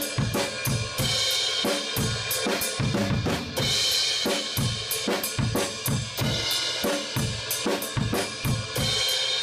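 Drum kit played in a steady rock beat: bass drum and snare hits about three a second under ringing cymbals, with several louder cymbal crashes.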